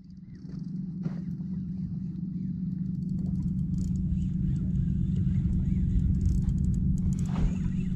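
Boat engine running steadily with a low hum, growing louder over the first few seconds and then holding.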